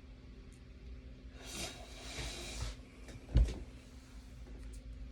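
A breathy rush of air lasting about a second, like a person breathing out hard, then one short, low thump about three and a half seconds in, the loudest sound, over a faint steady hum.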